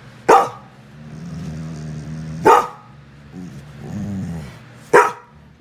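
Pit bull barking three times, about two and a half seconds apart, with low drawn-out growls between the barks.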